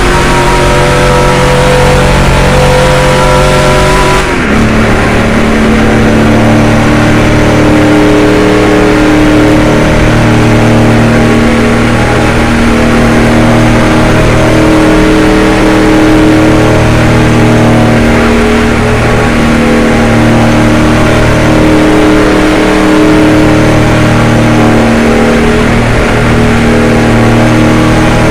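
NASCAR stock car's V8 engine at high revs, heard from inside the car. It drops in pitch about four seconds in, then runs on steadily with slight rises and falls in revs.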